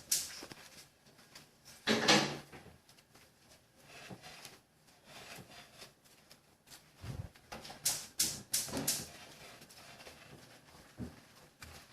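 Soft pizza dough being kneaded by hand in a bowl: irregular slaps and knocks with quieter rustling between, the loudest about two seconds in and a quick run of them about eight seconds in.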